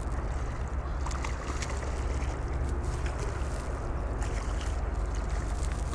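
Steady low wind rumble buffeting the microphone, with a few faint ticks scattered through it.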